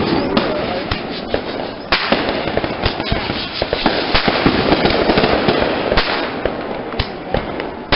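Consumer fireworks going off in a dense barrage: rapid overlapping pops and bangs over a steady crackle, growing louder about two seconds in.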